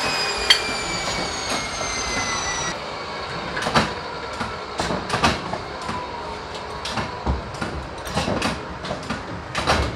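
An electric cut-off saw winding down, its whine falling steadily in pitch until it cuts off about three seconds in. After that come irregular metal clanks and knocks as aluminium ladder rails are fitted into a steel jig.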